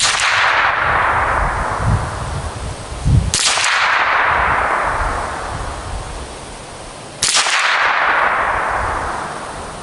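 Three shots from a Ruger 10/22 .22 rimfire rifle, a little under four seconds apart, each a sharp crack with a long tail that fades over a few seconds.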